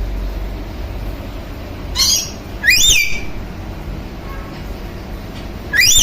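Red lorikeet calling: a short sharp call about two seconds in, then a high whistled note that rises and falls, and another rising note near the end.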